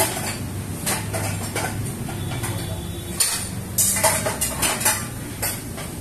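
Wooden spatula stirring sliced onions in oil in a wok, scraping and knocking against the pan, with a quick cluster of knocks about four seconds in.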